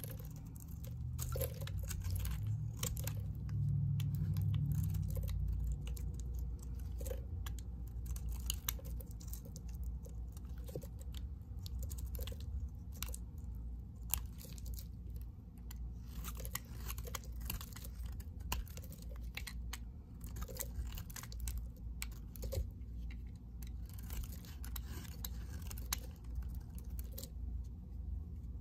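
A knife blade shaving and cutting into a bar of white soap, with frequent irregular crisp crackles as flakes and chunks break away. A low rumble sits under the first few seconds.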